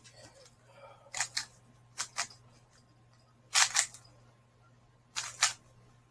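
Speed cube being turned in quick moves while solving the white cross: four short bursts of sharp plastic clacks, mostly two turns at a time, with pauses between them.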